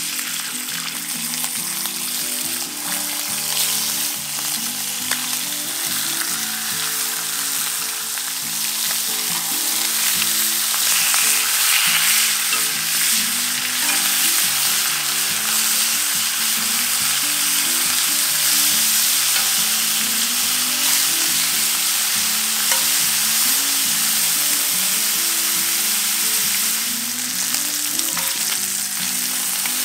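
Bacon sizzling and spitting in a hot cast-iron pan over coals, starting suddenly as the first rasher goes in and carrying on steadily while the rashers are moved about with metal tongs.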